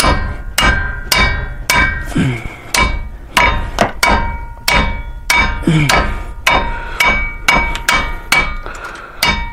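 Hammer striking the handle of a 3/8-inch Stanley ratchet over and over, about two blows a second, each with a metallic ring. The blows are driving the ratchet to break loose a stuck 17 mm brake caliper mounting-bracket bolt.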